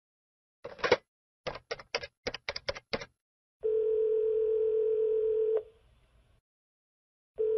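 A telephone being dialled: a quick run of about ten sharp key clicks. Then the ringback tone of the call going through rings steadily for about two seconds, stops, and starts ringing again near the end.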